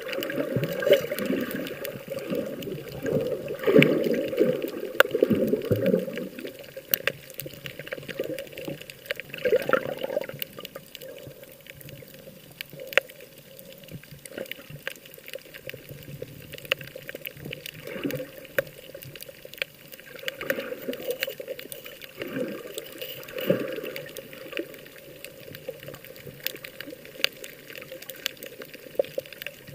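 Sea water sloshing and splashing close by, swelling and easing in irregular surges every few seconds.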